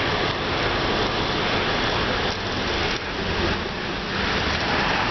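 Steady rushing noise from riding a bicycle beside a line of slow cars: wind on the microphone mixed with traffic noise.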